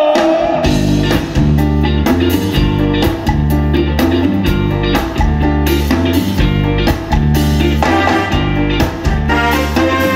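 Band music starting about half a second in, with a steady beat from drum kit and bass and guitar playing over it.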